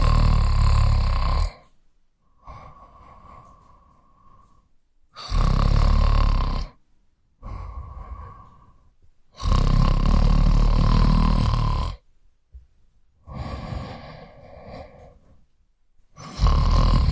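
A man snoring: loud, deep snores about every five seconds, the third one longer, with quieter breaths between them and a fourth snore starting near the end.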